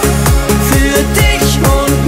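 Background music: an upbeat electronic dance-pop track with a steady kick drum about twice a second under a melody, without singing.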